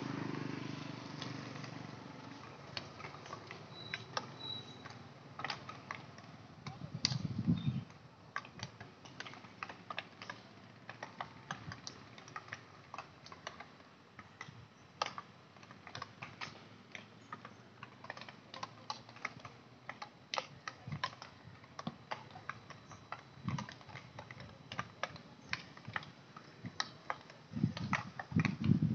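Irregular sharp clacks of field hockey sticks striking balls across a practice pitch, several a second and overlapping. A short low rumble about seven seconds in is the loudest moment, with a couple more near the end.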